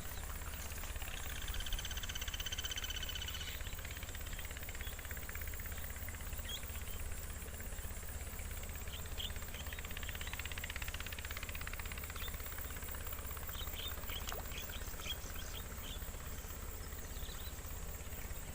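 Forest ambience: a held, whistled call about two seconds in, then scattered short bird chirps in the middle and latter part, over a steady low rumble and a thin, steady high-pitched whine.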